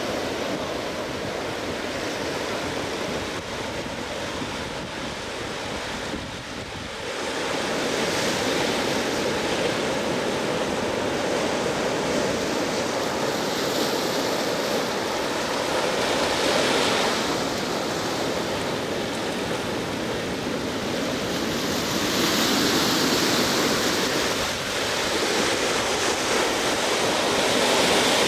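Ocean surf: a continuous rush of breaking waves, swelling louder every several seconds as each wave breaks and washes up the shore, with some wind.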